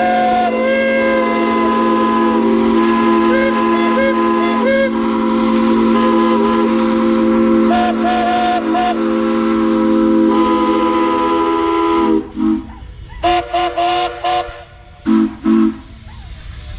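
Several steam whistles blowing at once in a loud, sustained chord of different pitches, some cutting in and out on their own. About twelve seconds in the chord breaks off into a handful of short toots.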